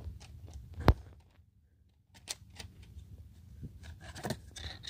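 Handling of a Samsung Galaxy Note 3 and light plastic clicks as its snap-on back cover is pried loose and lifted off. There is one sharp knock about a second in and a short scratchy scrape near the end.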